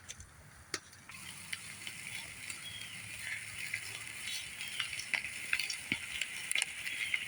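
Chicken thighs sizzling over a campfire, with scattered crackling pops and a few short whistles from the fat and fire. The hiss comes in suddenly about a second in.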